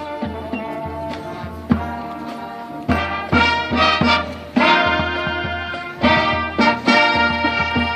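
High school marching band playing, brass section holding sustained chords over percussion; the brass grows louder about three seconds in, with accented hits repeating every second or so.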